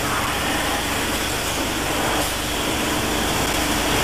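Steady machinery hum with hiss and a faint low tone, from a large filament-winding machine turning a big composite tank on its mandrel.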